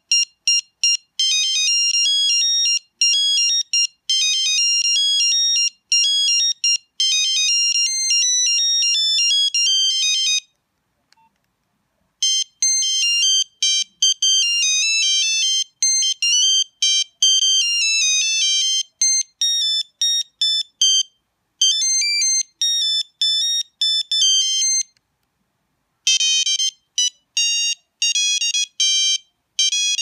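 Nokia 6340i mobile phone playing its built-in default ringtones: quick, high beeping notes in single-line melodies. The tune stops for about a second and a half about ten seconds in and for about a second about twenty-five seconds in, each time before the next ringtone starts.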